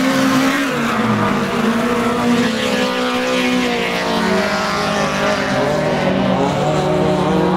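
Several race-car engines held at high revs as the cars lap an ice track. Their overlapping pitches rise and fall slightly as they go round.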